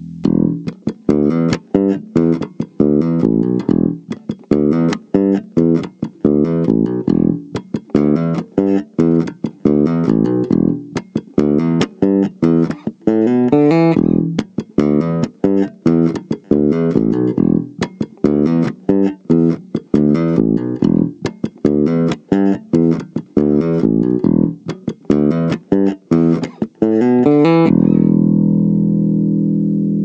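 Ibanez BTB 775 five-string electric bass, recorded direct, played fingerstyle through its bridge pickup alone: a busy line of quick plucked notes, ending near the end on one long held note that rings out.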